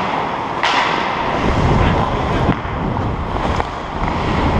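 Wind buffeting a helmet-mounted GoPro's microphone as the wearer skates, with skate blades scraping the ice. One sharp clack comes about half a second in, and the low rumble grows heavier after about a second.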